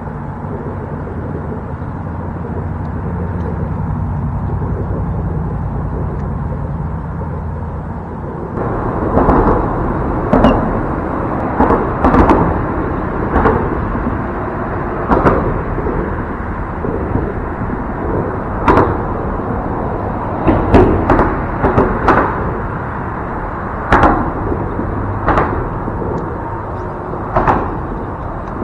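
A steady low hum, then from about eight seconds in a string of sharp, echoing thumps at irregular intervals of a second or two, some coming in quick pairs.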